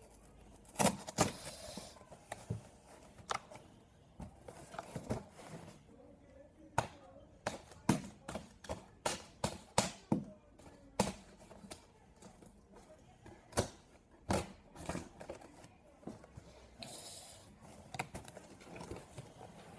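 Hands handling and working at a large cardboard shipping box, trying to get it open: scattered, irregular taps, knocks and scrapes, with a short rubbing rasp near the end.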